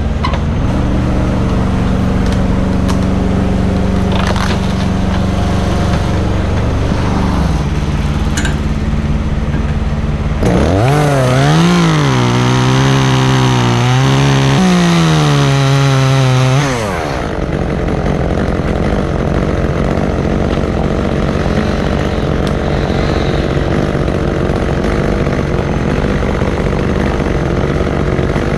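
A chainsaw revs up and cuts through a tree limb for about six seconds, its pitch rising and sagging as it bogs in the cut, then it stops. Under it, a machine engine drones steadily.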